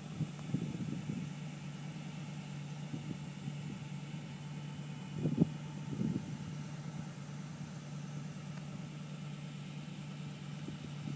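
Car engine idling steadily, a low even hum, with a few brief knocks, the loudest about five seconds in.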